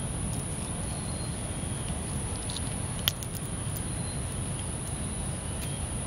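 Steady outdoor ambience of droning insects over a low rumble of wind on the microphone, with a few faint chirps. About halfway through, a single sharp click as a folding knife's blade cuts through a plastic strip.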